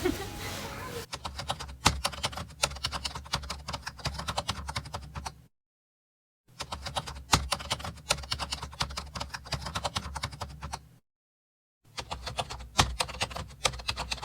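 Dry tinder crackling in quick, irregular clicks, in three stretches cut apart by short dead silences.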